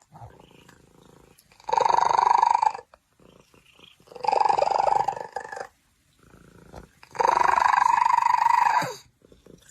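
A cat giving three long, drawn-out calls of even pitch, each lasting about one and a half seconds, with short pauses between them.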